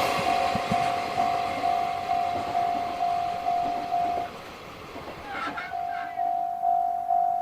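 Japanese level-crossing warning bell sounding its electronic clang at about two strokes a second as a passing train's noise dies away. The bell stops about four seconds in and starts again a second or so later.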